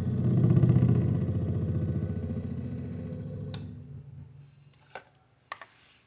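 Embraco EM2U60HLP hermetic refrigerator compressor, powered through a PTC start relay and thermal protector, giving a loud buzzing hum as it tries and fails to start. The hum fades out about four seconds in, with a few clicks near the end. The technician takes this for a heavy or damaged piston that keeps the motor from starting, with the motor winding itself fine.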